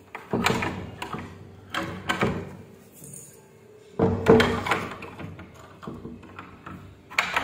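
Handling noise from a phone camera held against clothing: dull thumps and knocks in three bunches a second or two apart, with rubbing in between.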